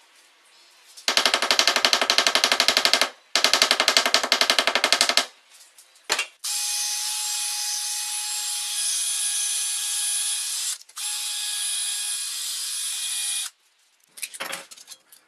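A hammer rapidly striking a thin metal rod clamped in a steel bench vise, in two spells of quick ringing blows. Then a cordless drill runs steadily for about seven seconds, with one brief stop, spinning the rod while it is sanded. A short clatter comes near the end.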